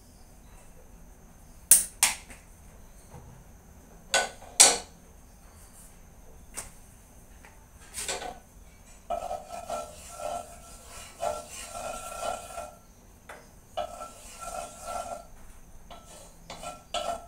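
A few sharp knocks and clicks in the first seconds, then a wooden spatula scraping around a wok in quick repeated strokes through the second half, with a thin squeak over the scrapes.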